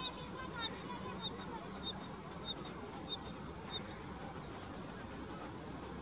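Upland pipit singing: a steady series of short, high two-part notes, about one every 0.6 s, stopping about four seconds in.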